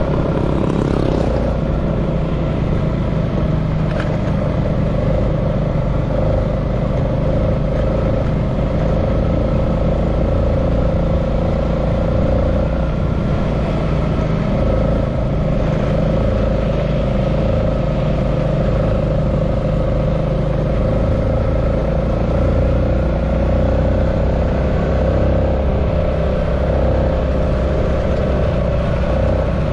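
Motorcycle engine running steadily at cruising speed, heard from on board the moving bike.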